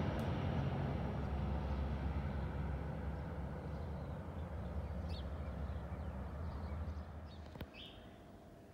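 Twin-turboprop airliner climbing away after takeoff, its engine and propeller noise fading steadily over several seconds.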